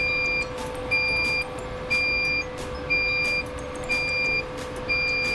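Alarm on a ship's GMDSS radio console beeping about once a second, each high beep about half a second long, over a steady lower tone from the equipment. It sounds while the MF/HF set runs on battery with its AC power turned off.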